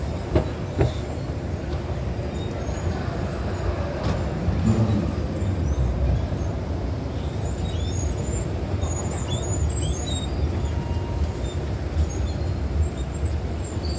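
Escalator running while being ridden up: a steady low rumble from its moving steps and drive, with a couple of light clicks within the first second.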